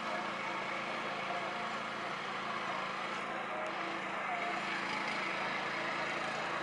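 A steady mechanical drone that holds level throughout.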